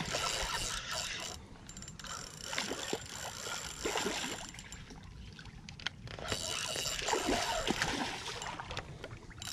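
A hooked snook thrashing and splashing at the water's surface as it is played on a spinning rod, in several splashy bursts with a quieter pause midway.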